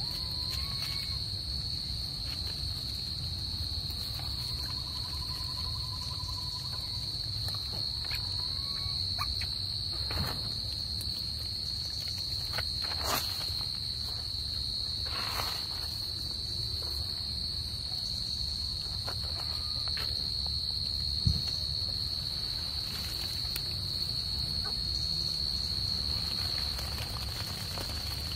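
Insects droning steadily at one high pitch, with a few faint whistle-like calls in the first several seconds and scattered clicks and rustles.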